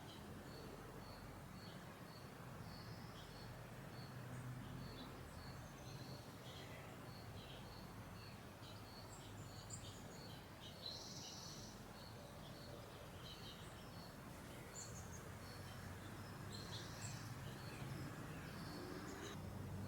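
Suburban garden ambience: birds chirping and calling, with a short high note repeating steadily about twice a second, over a faint low hum of background noise.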